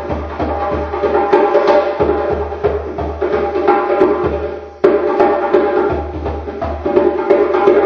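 Djembe played with bare hands: a fast, repeating hand-drum rhythm with a low thump under it about three times a second. It breaks off briefly just under five seconds in, then comes back in with a sharp stroke.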